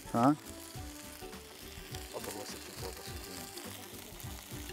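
Food frying and sizzling on the hot grill, a steady low hiss, with quiet background music under it. A short voice sound comes right at the start.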